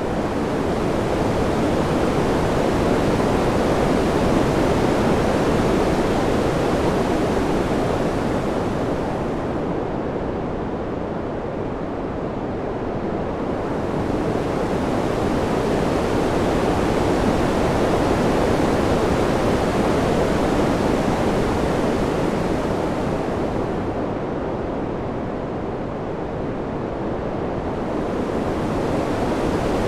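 Wind sound: an even rushing noise that swells and eases slowly, with lulls about a third of the way in and again near the end, its hiss thinning in each lull.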